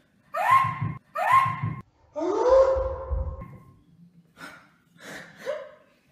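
Straining cries from an arm-wrestling match: two short, high-pitched effort cries, then a longer, lower one, each rising and then held. A few short, faint breathy sounds follow near the end.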